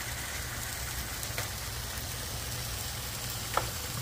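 Beef curry with potatoes sizzling in its own juices in a pot on the stove, a steady crackling hiss as the meat cooks down. Two faint light ticks are heard, one at about a second and a half and one near the end.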